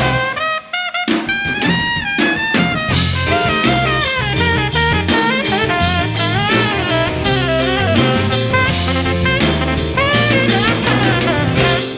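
Instrumental break in a rhythm-and-blues song: trumpet and tenor saxophone play a horn line over drum kit and bass, with no singing.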